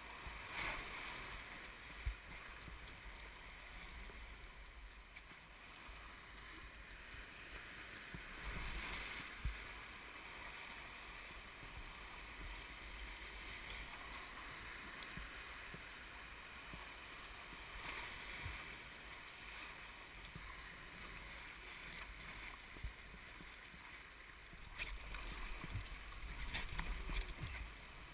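Gallatin River whitewater rapids rushing around an inflatable raft: a steady hiss of fast-moving water, broken by a few sharp knocks and a louder, rougher stretch near the end.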